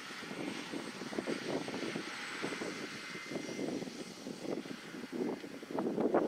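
John Deere 6150M tractor's diesel engine running at working speed as it pulls a three-point sprayer across the field, mixed with wind gusting on the microphone; the wind grows louder near the end.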